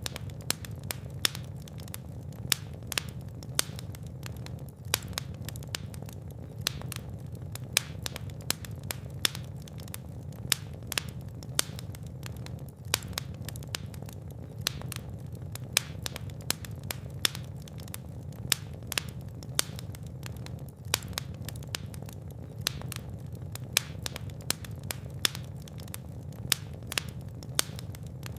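Fire burning in a fireplace: irregular crackles and pops, several a second, over a steady low rumble of the flames.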